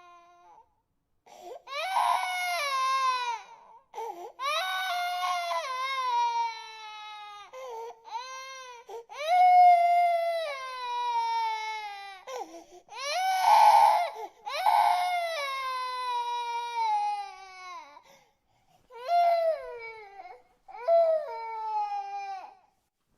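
Infant crying: a string of about ten wailing cries, each one sliding down in pitch, broken by short pauses for breath.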